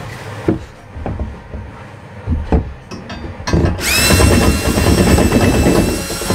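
A few knocks as a cordless drill with a step bit is set against a plastic tote. Nearly four seconds in, the drill starts: its motor whine rises to speed, then it runs steadily, boring out the hole around the steel steam coil.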